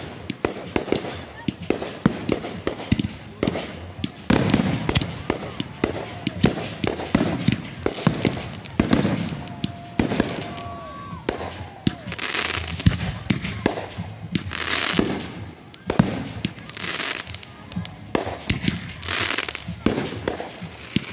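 Consumer aerial fireworks going off in rapid succession: many sharp bangs from launches and shell bursts, with stretches of crackling hiss from the bursting stars.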